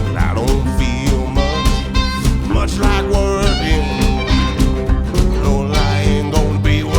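Blues band music: guitar and bass over a steady, regular drum beat.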